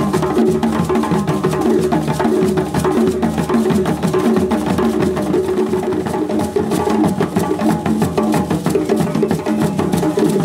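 Ewe drum ensemble playing a fast, dense, unbroken rhythm: pitched hand drums over a sharp clicking timekeeping pattern.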